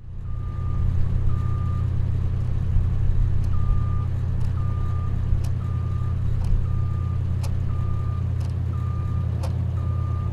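A vehicle's reversing alarm beeping about once a second, with a short pause near the start, over a steady low engine rumble, with a few sharp clicks now and then.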